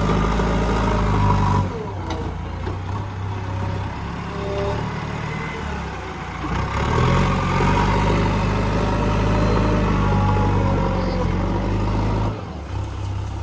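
Heavy diesel machinery engine running and working under load. It is louder for the first couple of seconds, drops back, then builds up again about six and a half seconds in before easing near the end.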